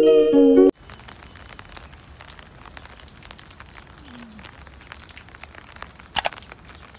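Plucked guitar music that cuts off abruptly under a second in, followed by faint crackling noise dotted with small clicks, and one sharper click about six seconds in.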